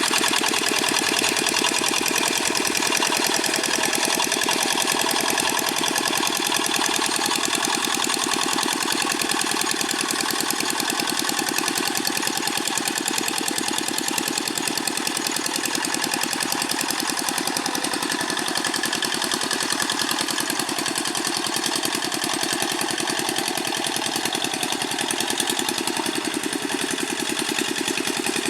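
Single-cylinder Dongfeng diesel engine of a Quick G600 hand tractor running steadily with a rapid, even chugging.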